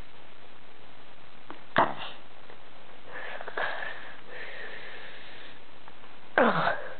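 Sleep breathing: a sharp snorting gasp about two seconds in and another near the end, with a long wheezy breath between them that carries a thin whistling note. These are the snoring and gasping of disordered breathing during sleep.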